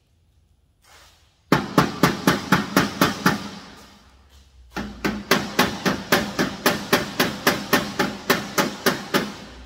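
A hammer tapping quickly on the steel cabinet, with a ringing after each tap, to drive in small plastic inserts that would not go in by hand. It comes in two runs of about five taps a second: a short run, a pause, then a longer run.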